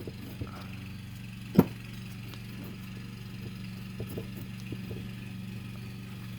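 A lawnmower engine drones steadily in the background while a wheel hub with a loose, badly pressed-in bearing is turned and rocked by hand, giving one sharp knock about a second and a half in and a few lighter clicks later. The bearing has play in and out and sounds terrible.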